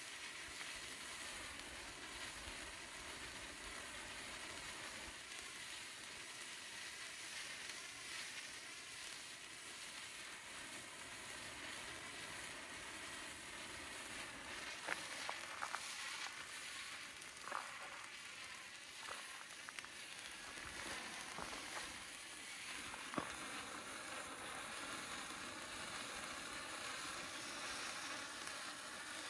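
Five-armed wooden sparkler fizzing steadily as its arms burn, with a few sharp pops and crackles about halfway through.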